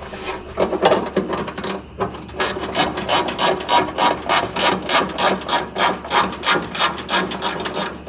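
Ratchet wrench clicking in quick, even strokes, about three or four a second, as it tightens the nut holding a ground wire's ring terminal on a grounding stud. Irregular clinks of handling come before the ratcheting starts, about two seconds in.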